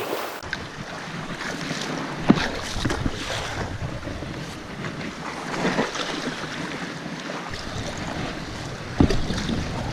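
Waves washing and wind buffeting the microphone as an inflatable stand-up paddle board is paddled through small surf, with a few sharp knocks, the loudest about two seconds in and near the end.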